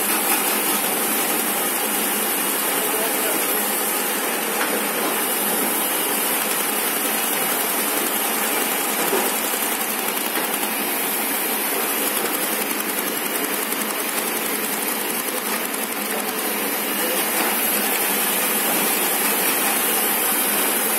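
QH850 crash-lock bottom folder gluer running at production speed, its belts and rollers feeding small cartons through. It makes a steady, even mechanical noise with a strong high hiss and no breaks.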